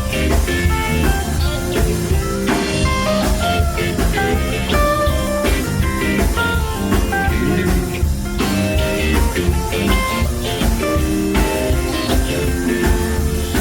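Rock band playing live, an instrumental passage with no singing: guitar notes over bass and a drum kit.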